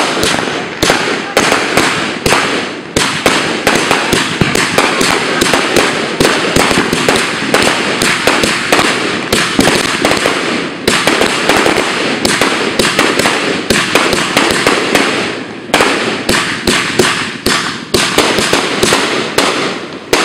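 Fireworks fired close by in a continuous barrage: a dense, rapid crackle of pops and bangs with no let-up, a few louder bangs standing out now and then.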